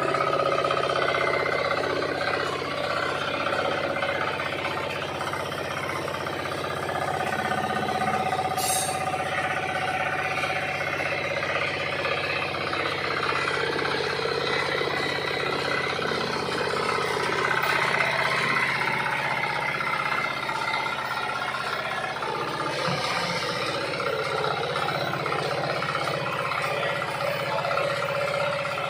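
Mini rice combine harvester's engine running steadily, with machinery noise over it.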